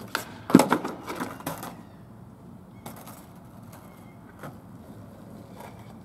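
Skateboard slapping down on asphalt after a trick, with a loud first smack and about a second of clattering as the board bounces and rattles, then a few lighter knocks.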